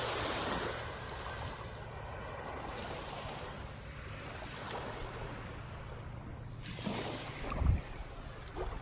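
Small waves washing onto a sandy beach, with wind rumbling on the microphone. A single low thump comes about seven and a half seconds in.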